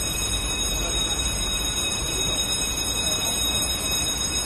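Steady low rumble of a fire engine running, under a continuous high-pitched tone, with faint voices.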